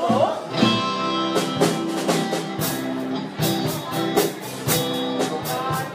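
Instrumental music accompanying a Thangyat performance, with sustained chords and a steady beat of crisp cymbal-like strikes.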